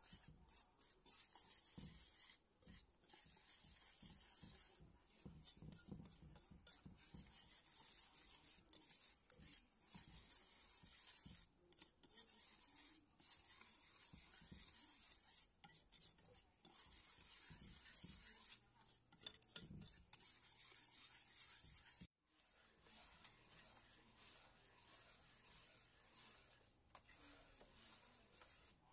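Utensil stirring and scraping a thick rice-flour and coconut-milk dough in a pan over low heat: faint, irregular rubbing strokes.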